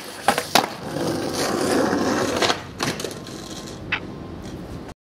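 A skateboard popped and landed, two sharp wooden clacks less than half a second apart, then its wheels rolling on asphalt with a few more knocks of the board. The sound cuts off suddenly near the end.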